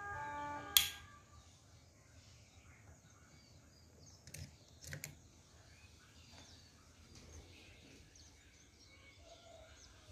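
Level-crossing gate hooter sounding a steady multi-tone note that cuts off with a sharp switch click about a second in. A little after four seconds in come two short clicks as the push button is worked, over faint bird chirps.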